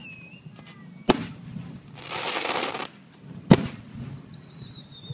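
Aerial firework shells bursting: two sharp bangs about two and a half seconds apart, with about a second of hissing between them.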